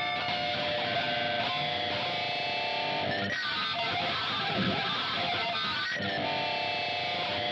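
Film score music led by guitar: held chords, with a busier passage of quick notes in the middle.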